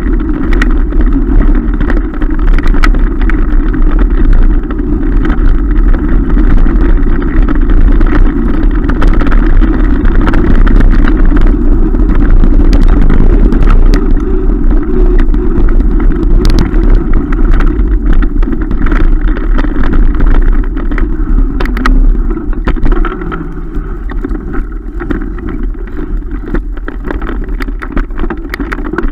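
Mountain bike ridden fast over a dirt forest track: a steady loud rumble of wind on the microphone and tyres on the ground, with frequent clicks and rattles from the bike over bumps. It gets somewhat quieter for the last few seconds.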